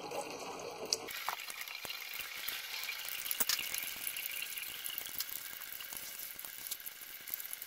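Automatic transmission fluid pouring out of the loosened transmission pan of a 2005 Dodge Dakota and splattering into a drain pan: a steady hiss that starts about a second in, with a few small drip ticks.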